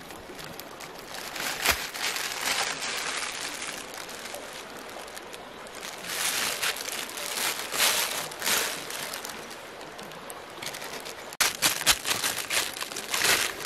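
A plastic bag crinkling and rustling in bursts as a knife and hands work on a carcass laid on it, over a steady hiss of running water.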